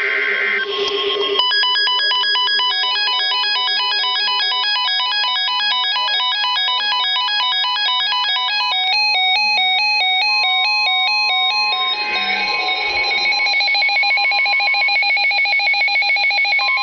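Electronic emergency-alert tones: rapid square-wave beeps hopping between several fixed pitches in a repeating, ringtone-like pattern that changes character a couple of times, leading into a severe thunderstorm warning broadcast.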